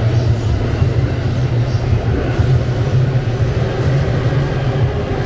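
JR Yokosuka Line electric commuter train rolling past close by, a steady low rumble of wheels on rail and running gear.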